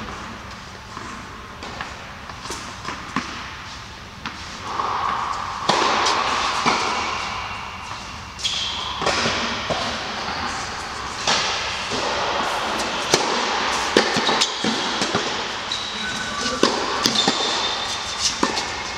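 Tennis ball bouncing on the court and being struck with rackets during a rally, a string of sharp hits and bounces echoing in a large indoor tennis hall.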